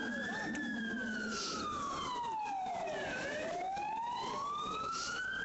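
Emergency vehicle siren in a slow wail: the tone peaks about half a second in, falls steadily for about two and a half seconds, then climbs again through the rest.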